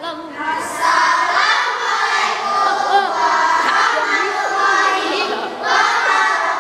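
A group of children chanting together in unison, with a brief pause about five and a half seconds in.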